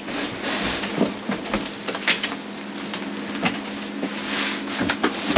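Cardboard mattress box being handled and opened, and a rolled, plastic-wrapped foam mattress slid out of it: steady scratchy rustling and scraping of cardboard and plastic against a wooden platform, broken by scattered knocks, with a sharp knock at the very end.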